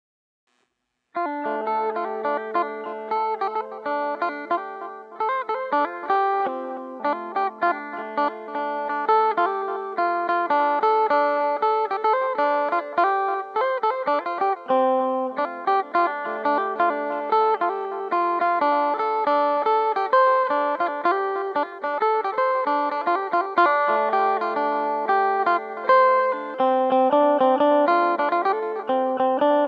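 Two-string phin, the Isan plucked lute, playing a quick picked melody over a held low drone note, starting about a second in.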